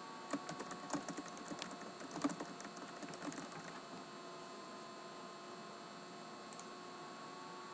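Typing on a computer keyboard: a run of quick, light key clicks for about three and a half seconds, then a single mouse click near two-thirds of the way through.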